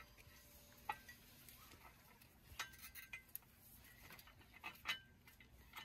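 Mostly near silence, broken by a few faint, scattered metallic clicks and clinks from hands and tools working at a side-by-side's CVT clutch.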